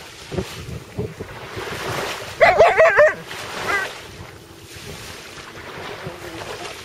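Alaskan Malamute vocalizing: one short call, under a second long, that wavers up and down in pitch about two and a half seconds in, then a brief fainter call. Wind blows on the microphone throughout, with surf behind.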